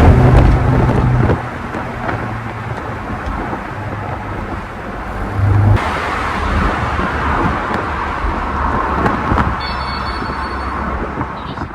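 BMW X6 M's twin-turbo V8 exhaust, loud for about the first second as a rev dies away, then dropping to a lower, steady running sound with a brief swell around the middle.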